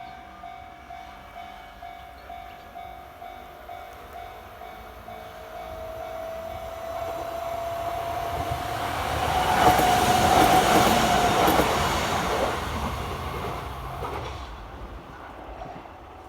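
A Japanese level-crossing warning bell rings in a steady repeated ding, about one and a half strikes a second. A Kintetsu Minami-Osaka Line train then approaches and runs past the crossing. It is loudest about ten seconds in and dies away about five seconds later, with the bell still ringing.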